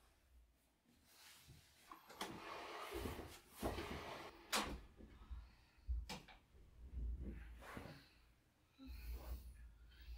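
Faint knocks, clicks and rustling of household things being handled, with sharper clicks about four and a half and six seconds in.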